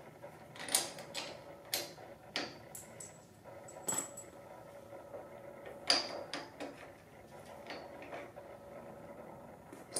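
A scatter of sharp clicks and taps from the parts of a motorcycle handlebar hand-control switch housing as it is handled and worked loose, the loudest about six seconds in.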